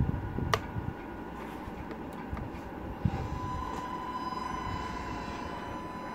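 Tamiya Scania RC tractor truck pulling away: a sharp click, a knock about three seconds in, then a steady whine from the truck's drive that carries on as it rolls forward.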